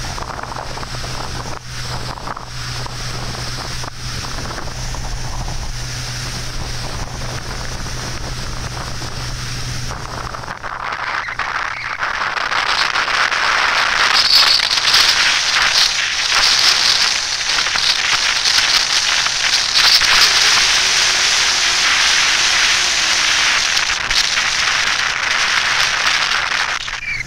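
Motorboat running across open water with a steady low engine hum. About eleven seconds in, a louder rush of wind on the microphone and water noise sets in and covers the hum until near the end.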